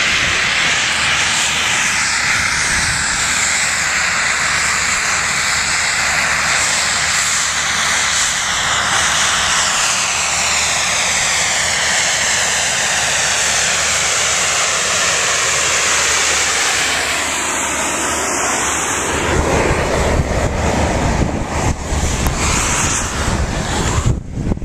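Snowmaking gun blasting, a loud steady hiss of air and spray whose pitch seems to sweep slowly as it is passed. About nineteen seconds in, wind buffeting on the microphone takes over.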